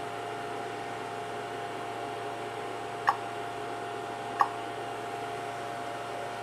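Cooling fans of a 1200 W bench power supply and a ToolkitRC M8D charger running steadily under a heavy fast-charge load, a steady hiss with a thin whine. Two short sharp clicks about a second and a half apart as the charger's screen is pressed.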